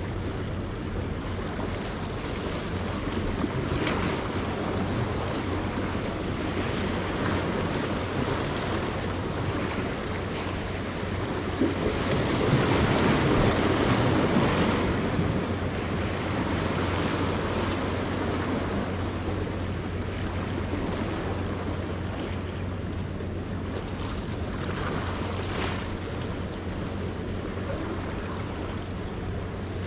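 Ocean surf breaking and washing against a rock jetty, with wind rumbling on the microphone. The wash swells and fades in slow surges, the biggest one loudest about twelve to fifteen seconds in.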